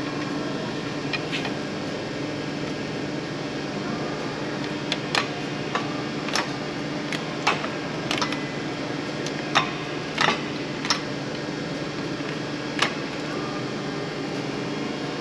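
Irregular sharp metallic clinks and knocks, about a dozen, from hand tools working on a starter motor's fixings, over a steady background hum.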